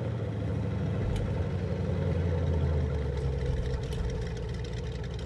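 Animated race car's engine sound effect, a low steady rumble as the car idles and rolls slowly.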